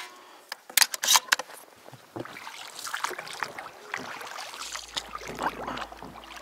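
Inflatable boat being rowed through reeds: a few sharp knocks in the first two seconds, then water swishing and reed stems brushing the hull. Background music with a low steady bass comes in near the end.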